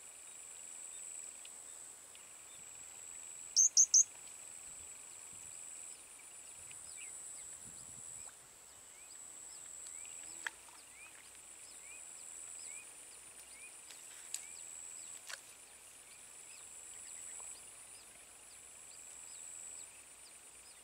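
Steady, high, pulsing chorus of crickets or cicadas, with three sharp, loud bird chirps about three and a half seconds in. Through the middle a series of short rising chirps repeats, and a few faint clicks are heard.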